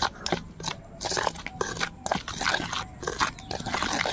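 A metal spoon stirring a dry mix of flour and ground spices in a stainless steel bowl, making a quick run of short, irregular scraping strokes against the bowl.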